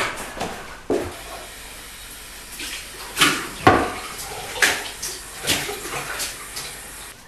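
Water running from a tap into a pan held in a sink, starting about a second in and shutting off near the end, with several sharp knocks of the pan against the basin.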